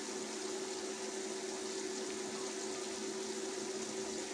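Steady fan hum with a constant low tone under an even hiss, running without change.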